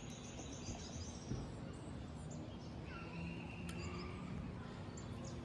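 Faint outdoor background with distant birds chirping and a couple of light taps.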